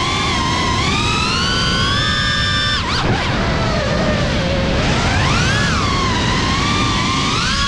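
Motors and propellers of a GEPRC Cinelog35 cinewhoop FPV drone whining, the pitch rising and falling with the throttle. The whine drops sharply about three seconds in as the throttle is chopped, then climbs again, over a steady rushing noise.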